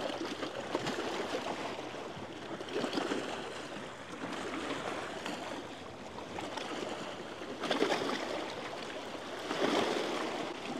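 Gentle water lapping and washing, swelling softly every few seconds.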